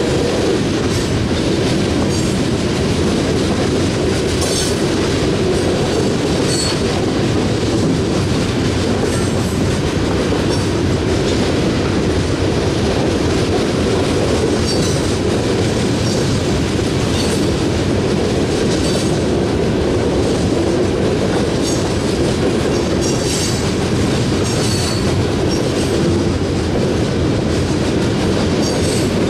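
Coal train's bathtub gondola cars rolling past close by: a steady rumble of steel wheels on rail with clickety-clack, and brief high wheel squeals every few seconds.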